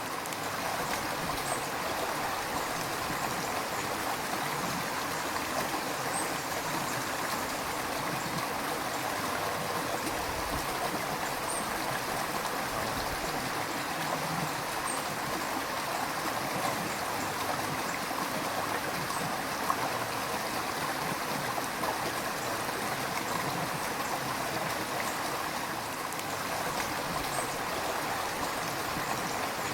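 River water flowing steadily, a continuous rushing with small splashes and gurgles.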